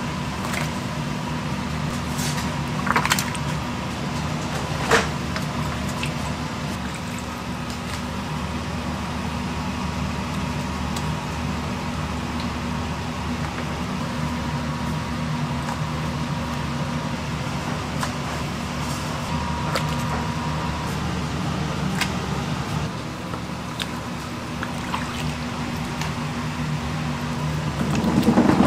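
Steady low mechanical hum of kitchen or market machinery, with a few sharp knocks and light liquid sounds as raw pig's feet are laid into a stainless steel pot of braising liquid. The hum swells louder near the end.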